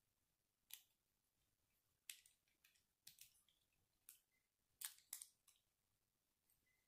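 Small plastic Lego bricks clicking as they are handled and pressed together: a quiet, irregular series of sharp clicks, some in quick pairs.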